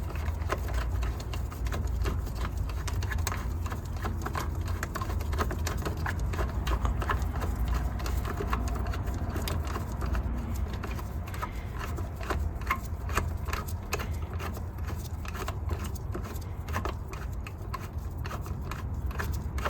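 Socket ratchet clicking in quick runs as the 8 mm battery hold-down bolt is worked loose, the clicks growing thicker about halfway through, over a low steady rumble.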